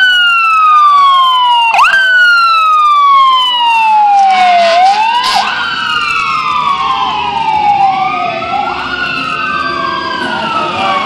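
Emergency vehicle sirens, a fire engine's among them, with at least two sounding at once. Each jumps up sharply in pitch and then slides slowly down over a few seconds, over and over.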